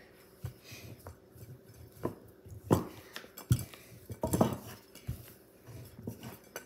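Kitchen utensils knocking and clinking on a countertop as dough is worked and rolled out: about eight irregular sharp knocks with light clatter between them.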